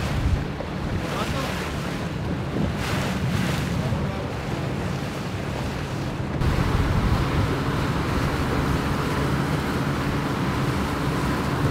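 Boat under way on open sea: wind buffeting the microphone and rushing water over a steady low engine hum. About six seconds in it becomes a louder, steadier rush of wake water.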